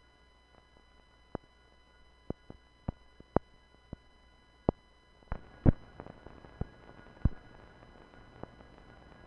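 Irregular clicks and pops from dust and scratches on an old film's soundtrack, running through its blank leader over a low steady hum and faint steady tones. The pops come every half second or so, with the loudest pair in the second half.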